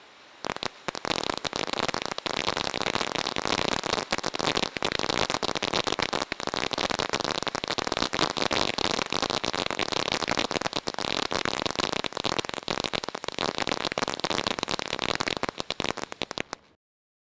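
A to Z 200 g firework fountain burning, its spray turning to a dense, rapid crackling about half a second in that keeps on until it cuts off suddenly near the end.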